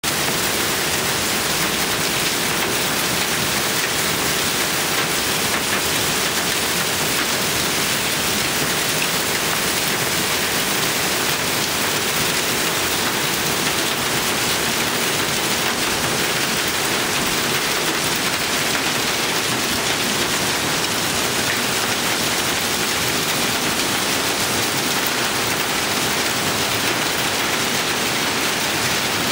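Heavy hail coming down hard, a dense steady hiss and patter of hailstones hitting a pickup truck's metal body and bed cover and the gravel around it, with no letup.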